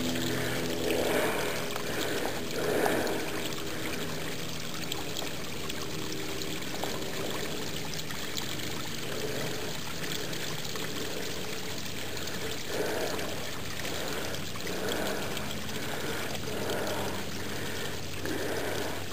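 A thin stream of water trickling and splashing steadily down over mossy rocks in a small hillside cascade.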